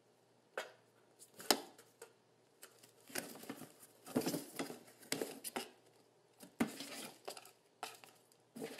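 A kitten pouncing on and pawing at a cardboard shoebox on a tile floor: irregular taps, scratches and short rustles of cardboard, with a sharp tap about one and a half seconds in.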